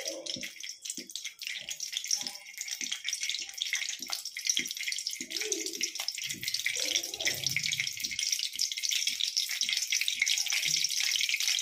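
Cooking oil heating in a steel kadai over a gas flame, sizzling with a steady hiss and fine crackling that grows a little louder as the oil gets hot.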